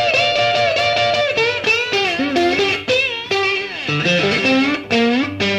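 Background music: a guitar playing a melody whose notes bend and slide in pitch.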